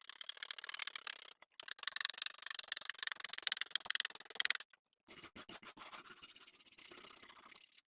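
Fast, repeated hand scraping strokes on the rusty hatchet, as in cleaning off rust. The strokes pause briefly about a second and a half in, stop for a moment near the middle, then go on more softly.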